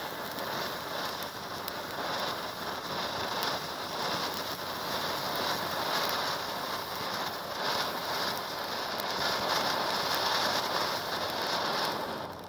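Funke 'Kornblume' F2 ground fountain burning, a steady hissing spray of gold sparks and blue stars with small crackles. It dies away near the end as the fountain burns out after a short burn.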